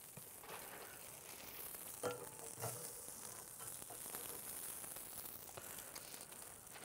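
Faint sizzling of meat grilling over hot coals on a Tuscan grill, with a couple of light knocks about two seconds in.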